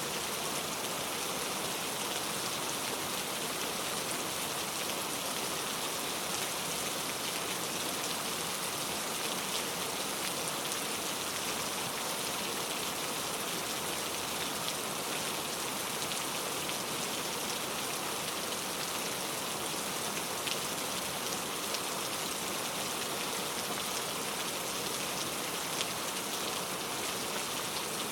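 Steady, even rain, with many small individual drop hits ticking through the hiss.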